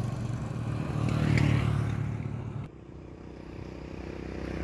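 Motor vehicle engine running steadily close by, dropping off abruptly about two and a half seconds in and then building back up.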